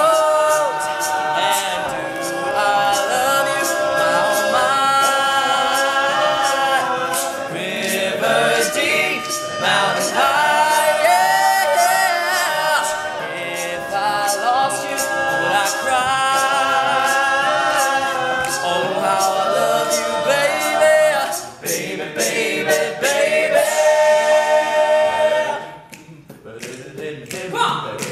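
All-male a cappella group singing a wordless instrumental break, many voices layered in chords that stand in for a backing band. Near the end the voices drop away briefly, leaving a few sharp taps.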